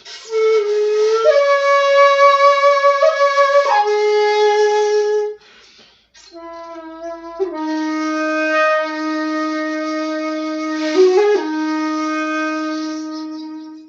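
Jinashi 1.7 shakuhachi (bamboo flute pitched in D) being played: a phrase of several changing notes, a short breath about five seconds in, then a long low note held with a brief ornament about eleven seconds in, fading near the end.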